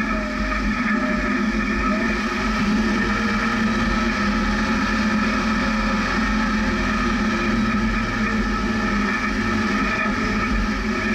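Jeep engine running at low revs while crawling slowly up a rocky dirt trail: a steady drone whose pitch drifts up and down a little with the throttle.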